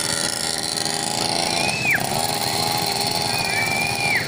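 The small engine of a mini motorbike buzzing steadily as it rides away. Two high gliding whistle-like calls sound over it, one about halfway and one near the end.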